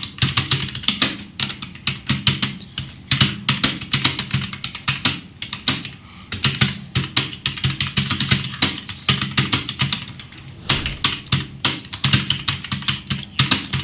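Fast touch-typing on a computer keyboard: a rapid, continuous stream of key clicks with a couple of brief slowdowns.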